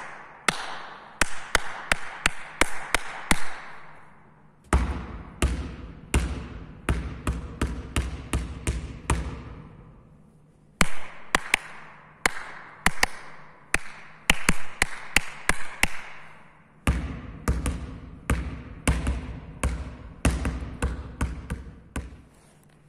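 Basketball ball-handling drill: a quick series of sharp smacks of the ball against the hands and the hall floor, about two to three a second, ringing in the sports hall. The smacks come in three spells, with short pauses about four seconds in, about ten seconds in and about sixteen seconds in.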